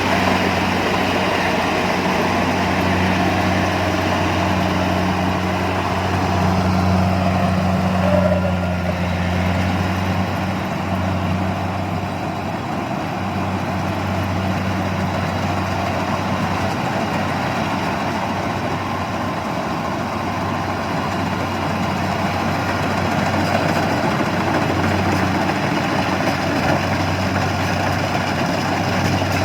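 Engine of a rice-harvesting machine running steadily at constant speed: a low, even hum under a haze of mechanical noise, easing slightly for a while near the middle.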